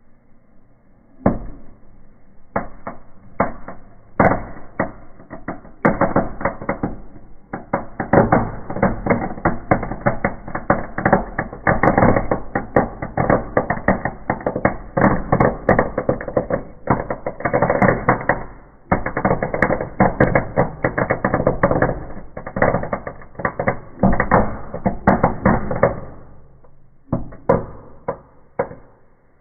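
Firework going off: a fast, dense run of cracks and pops that starts about a second in, runs for some 25 seconds and tails off, followed by a few last pops near the end.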